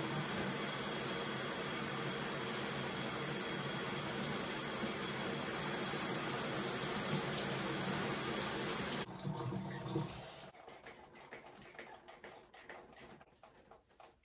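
Shower spray running steadily over hair in a tiled shower stall, cutting off about nine seconds in and dying away a second or so later. After it, faint wet clicks and drips as hands work through soaked curly hair.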